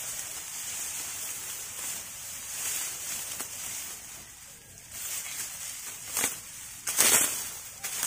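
Hand sickle cutting through handfuls of ripe rice stalks, with dry rustling of the straw. The cuts come as short, sharp bursts, the loudest two near the end about a second apart.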